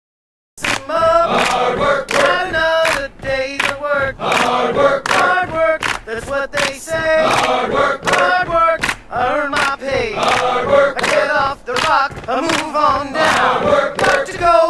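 Several voices chanting and singing a song over a steady beat, starting sharply about half a second in after silence.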